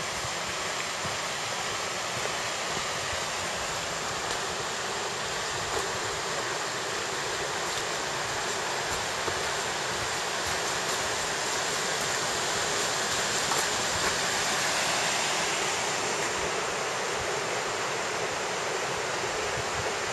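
Mountain river rushing over rocks: a steady, even rush of water that swells a little partway through.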